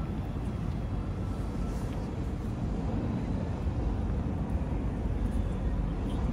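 Steady low rumble of outdoor city background noise, even throughout with no distinct events.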